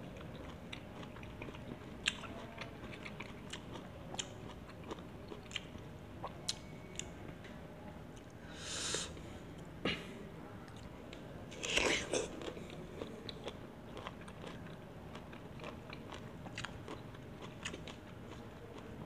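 Close-up chewing and crunching of firm, unripe mango slices dipped in sambal, with many small crisp clicks and a few louder crunches around the middle.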